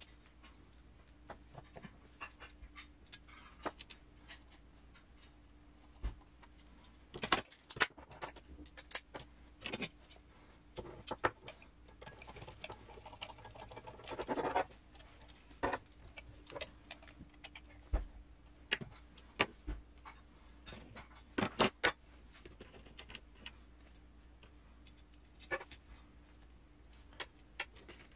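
Small metal RC crawler parts clicking and clinking as a leaf spring mount is fitted to a metal chassis rail and screwed on with a hand screwdriver: scattered sharp taps and knocks, with a stretch of scraping as the screw is turned a little before the middle.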